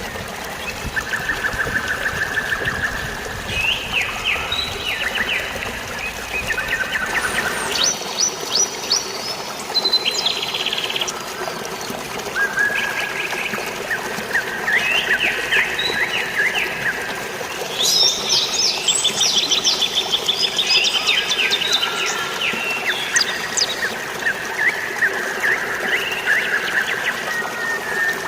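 Several birds singing together, overlapping series of rapid chirps and trills, over a steady wash of flowing water; the deepest part of the water sound falls away about eight seconds in.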